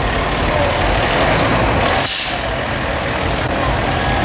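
Fire department ladder truck's diesel engine rumbling as it rolls slowly past, with a short, sharp hiss of air brakes about two seconds in.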